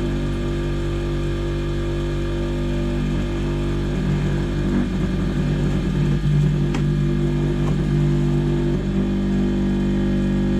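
Bench grinder running on its bolted-down bench: a steady motor hum, with a fluttering rattle of vibration through the middle few seconds. The owner blames the noise on over-tightened rubber mounting feet, which he calls a terrible racket.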